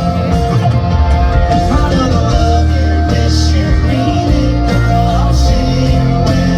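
Live country band playing, with guitars, bass and drums under a male lead singer.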